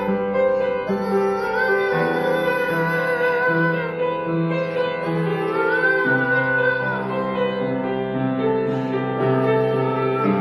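Upright piano accompaniment in held chords, changing about two seconds in and again near the middle, with a young girl singing long held notes over it.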